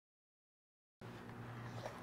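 Dead silence for about a second, then faint room tone with a low steady hum.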